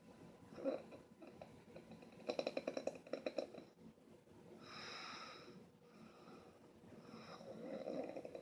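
Snoring: a fluttering, rattling breath in, a smoother hissing breath out about halfway through, then another rattling breath building near the end.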